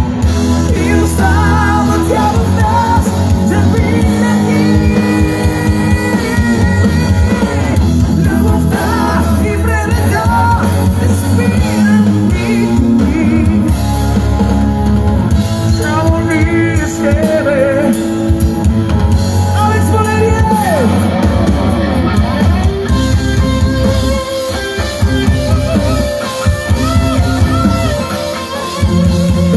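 Live rock band playing loudly: electric guitar over drum kit and bass, with a lead melody that bends in pitch. The bass and drums stop in a few short gaps a few seconds before the end.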